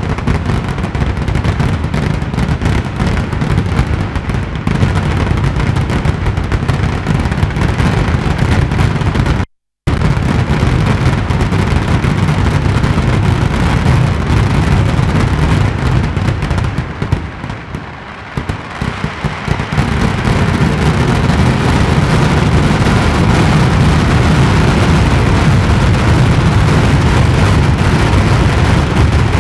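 Kootta porichil, the fireworks finale barrage: explosions in rapid, unbroken succession, merging into one continuous deep rumble. It cuts out for an instant about ten seconds in and thins briefly a little past halfway before building back to full strength.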